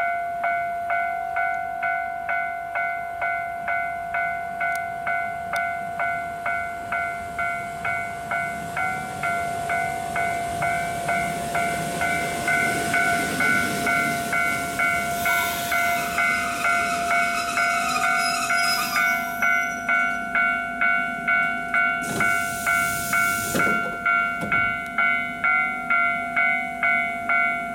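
Level-crossing warning bell dinging steadily about twice a second while a JR Hokkaido 721-series electric train runs in and brakes to a stop. The train's running noise swells midway with a high squeal as it brakes, and late on comes a short loud hiss of compressed air as the doors open.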